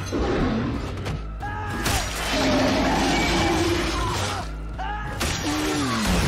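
TV drama soundtrack in a tense action scene: dramatic score under sound effects. A shotgun is pumped at the very start, and there are short cries with swooping pitch, one falling away near the end.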